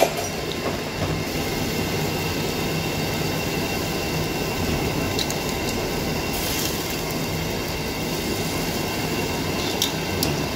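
Tom yum broth at a hard rolling boil in a pot: a steady, dense bubbling rumble. A few light clicks of metal tongs against the pot come near the middle and near the end.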